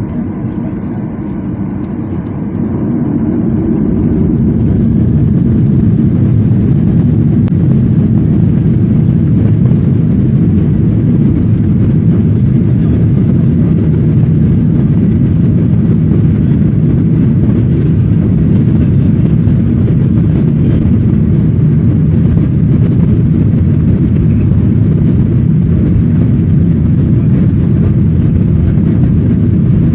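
Boeing 737 jet engines spooling up to takeoff thrust, swelling over the first few seconds, then a steady, loud, deep rumble as the aircraft takes off.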